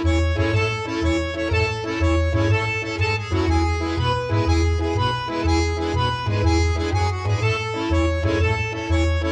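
Background music led by an accordion over a steady pulsing bass line.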